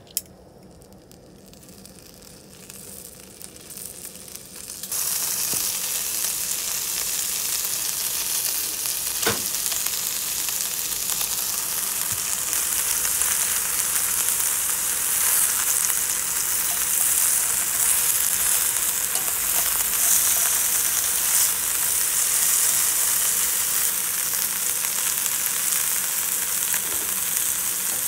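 Thick beef steak sizzling loudly on a hot barbecue. The sizzle starts suddenly about five seconds in and then holds steady, with one sharp knock about nine seconds in.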